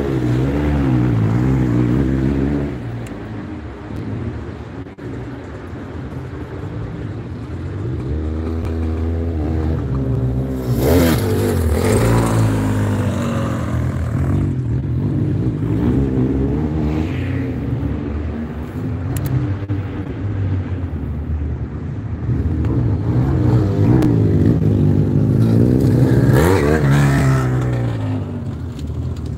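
Motocross sidecar outfits racing on the track, their engines revving up and down through the gears. The engines swell loudest as machines pass close, about a second in, around eleven seconds in and again around twenty-six seconds in.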